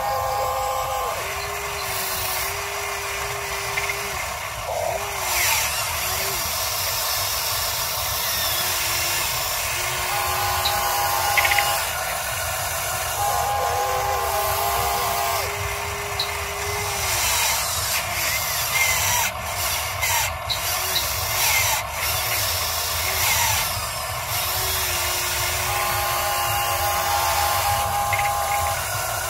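Huina 580 RC excavator's electric motors whining in on-and-off spells as the boom and bucket work, the pitch sagging and shifting under load, with scraping from the bucket in loose soil. A run of sharp clicks comes a little past halfway.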